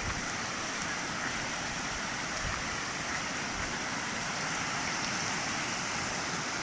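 Shallow stream rushing over flat rock rapids: a steady hiss of running water.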